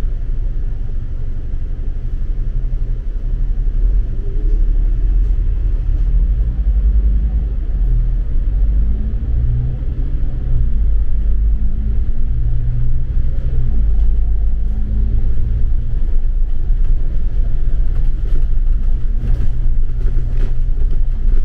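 A steady, loud low rumble of vehicle noise, strongest in the bass.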